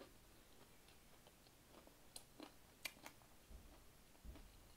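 Faint close-up chewing with mouth clicks, a few sharp clicks around the middle and soft low thuds near the end.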